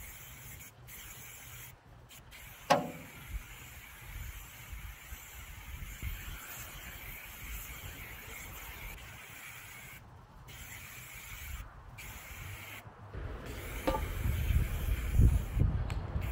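Aerosol can of Tremclad textured spray paint hissing in long bursts, with brief pauses between them. There is a short falling squeak about three seconds in and low rumbling near the end.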